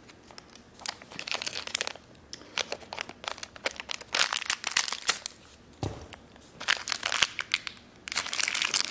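Small plastic parts bag crinkling and rustling in several bursts as it is handled and opened by hand.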